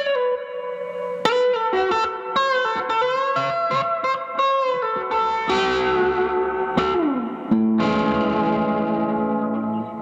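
Electric guitar played through a Vox AC10C1 valve combo amp: picked single-note lead lines with string bends, a slide down in pitch about seven seconds in, then notes left ringing.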